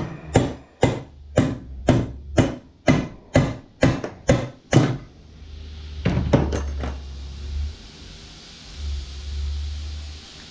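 Hammer striking a steel punch in steady blows about twice a second, about ten in all, driving a stuck part out of a mower's blower fan assembly. The blows stop about halfway through, followed by a few quick light clicks and a low hum.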